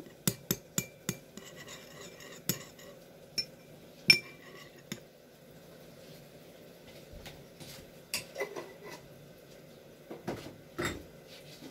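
Metal spoon clinking against a cut-glass bowl while stirring a thin vinegar-and-chili dipping sauce: a quick run of sharp clinks in the first few seconds, then a few more clinks and knocks near the end after a quieter stretch.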